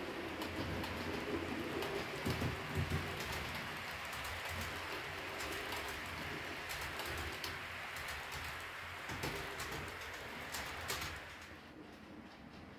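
H0-scale model train, an electric locomotive hauling a long rake of passenger coaches, rolling past on the track: a steady running rumble with the motor's hum and occasional sharp clicks from wheels over rail joints. The sound drops away about eleven seconds in as the last coach passes.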